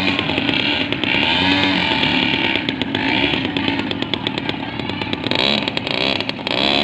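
Engine sound of a miniature squid-fishing boat model, a steady buzzing run.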